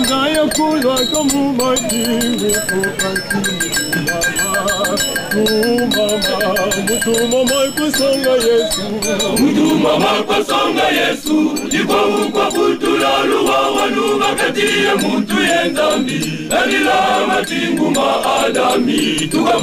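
Male choir singing a gospel hymn in several voices together, over a rhythmic percussive beat.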